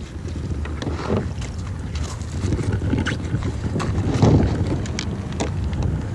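Footsteps in foam clogs crunching irregularly on loose river gravel, with wind buffeting the microphone in a low rumble.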